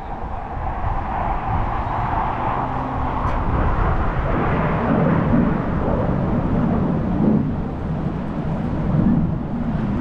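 Military jet flying past: a steady rushing engine noise that grows louder about halfway through and turns deeper.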